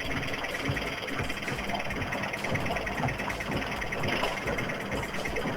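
Gorenje SensoCare 7kg washing machine running a wash cycle, heard from the back, its rotating drum giving a steady, closely spaced clicking: a mechanical fault at the back of the machine, which the repairer later traces to the drive motor.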